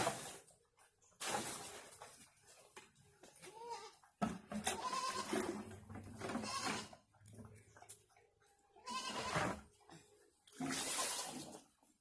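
Farm animals calling with short bleat-like cries, several times, between bursts of rustling noise.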